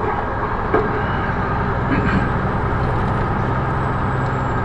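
Steady road noise from a vehicle driving on the highway: a constant low engine drone and rumble, with a single short knock about three quarters of a second in.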